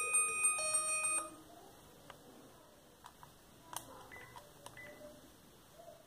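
NEC e616V flip phone's built-in polyphonic ringtone, a bell-like melody from its small speaker, which stops about a second in. A few faint clicks and a short beep follow.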